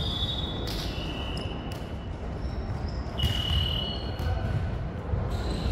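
Echoing sports-hall sounds: rubber-soled shoes squeaking on the wooden court, a few ball thuds, and faint voices in the background.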